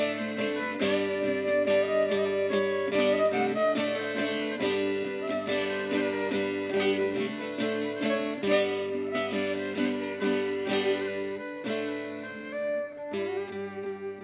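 Violin and a plucked, bowl-backed lute playing a lively traditional folk tune together, the violin carrying the melody over a steady plucked rhythm. The music grows quieter and winds down near the end.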